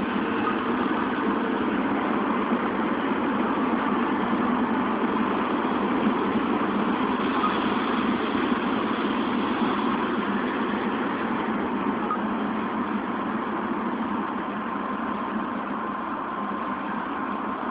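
Scratch-built foam RC flying wing's motor and propeller droning steadily in flight, a rushing drone with a faint thin whine in it, easing off slightly near the end.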